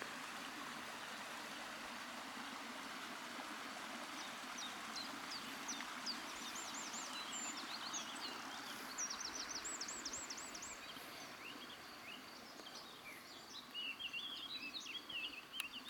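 Small birds singing outdoors: bursts of high chirps and quick repeated trilled notes about four seconds in, and more twittering near the end, over a steady rural background hiss.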